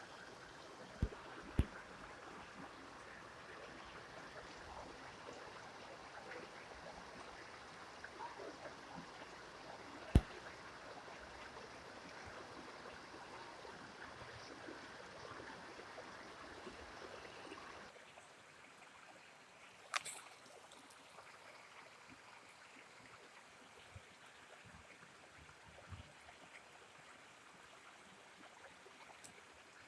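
Faint steady trickling of water, which drops off about two-thirds of the way through, broken by a few sharp clicks or knocks; the loudest comes about a third of the way in.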